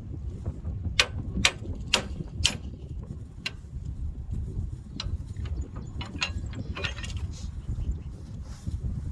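Hand wrench working a loosened bolt out of a disc tiller's hitch: four sharp metal clicks about half a second apart, then a few scattered clicks, over a steady low rumble.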